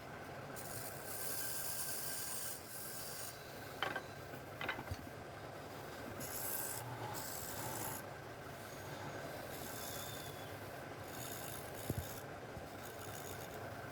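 Wood being abraded by hand in long scraping strokes that come and go every second or two, with a few sharp knocks.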